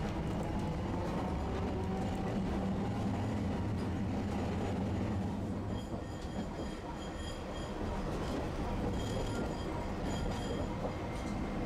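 Streetcar running along its track, heard from the front of the car: a steady low motor hum and wheel rumble. From about six to ten seconds in, a faint high ringing comes and goes in short pulses.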